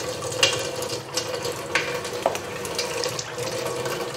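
Pot of biryani on a lit gas burner, sizzling as it is set on dum: a steady hiss with a faint steady hum, broken by several light clicks.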